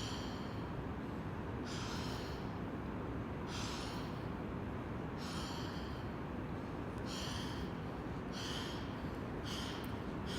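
A person's sharp, forceful breaths close to the microphone, repeated about every second and a half to two seconds and coming quicker near the end, over a steady low background hum.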